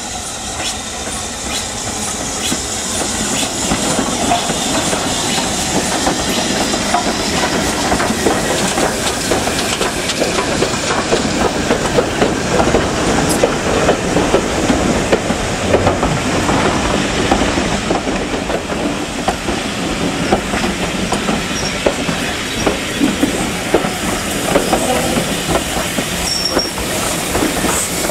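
Steam-hauled train of coaches passing close by, its wheels clattering over the rail joints. It grows louder over the first several seconds, then carries on as a steady rattle.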